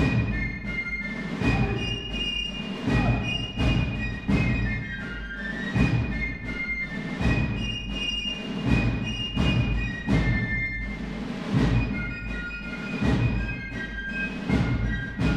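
Military band music: high held notes above a strong drum beat that falls about every second and a half.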